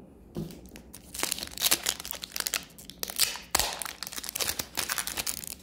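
Foil wrapper of an Upper Deck hockey card pack crinkling and tearing as it is opened by hand: an irregular run of crackles starting about half a second in.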